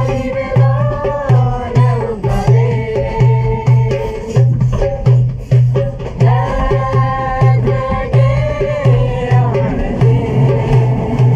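A small hand drum played with bare hands in a steady beat of about two strokes a second, with voices singing a song over it.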